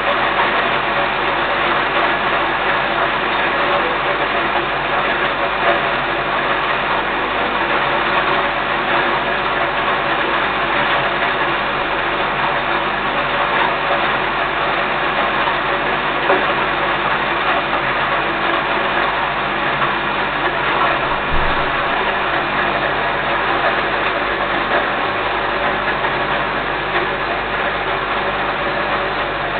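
Electric grain mill running steadily, its motor turning and grinding grain into quail feed.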